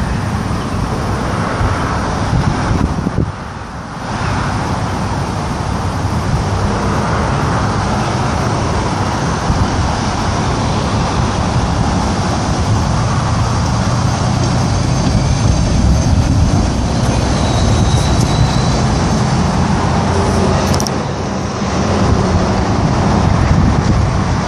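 Steady rumble of a Chevrolet hi-rail pickup truck's engine as it runs along the rails toward the listener, over road traffic noise, dipping briefly about three seconds in.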